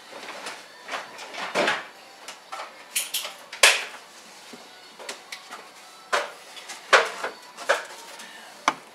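Irregular clicks, clunks and light rattles of tools and parts being handled during hands-on work in a truck's engine bay, with a few sharper knocks, the loudest about a third of the way in and again near three-quarters.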